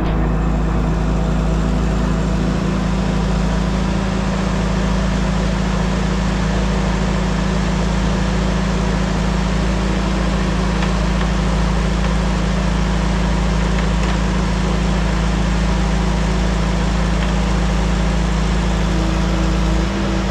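An engine running steadily at constant speed, with a low rumble and an even hum.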